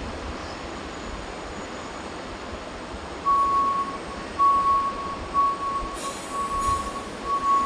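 Boeing 747-8's jet engines whining at a distance: a steady high whine that sets in about three seconds in and swells and fades, over a background rush.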